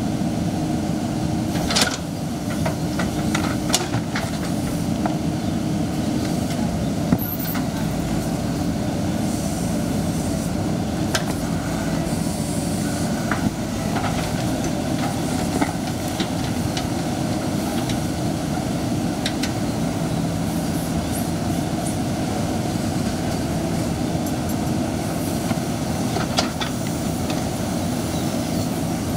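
Excavator's diesel engine running steadily under load, with scattered sharp knocks and clanks of the bucket against rock and stone.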